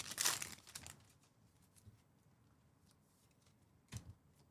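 Trading cards being handled, sliding and rustling against each other for about the first second. Then near quiet, with two short soft knocks near the end.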